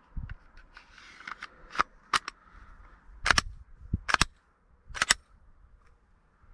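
Glock G20 pistol being reassembled with its conversion barrel: soft handling noise, then a series of sharp metallic clicks and snaps from the slide and frame, several in quick pairs.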